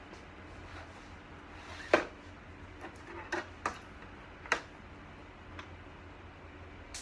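A few sharp clicks and knocks from parts of a computer cart being handled and fitted by hand, the loudest about two seconds in, over a low steady hum.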